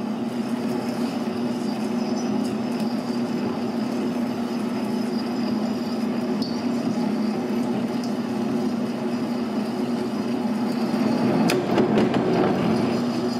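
Metal lathe running steadily with a parting blade fed deep into a large-diameter steel bar, giving a steady hum. About eleven and a half seconds in come a few sharp cracks: the parting blade's tip cracking off.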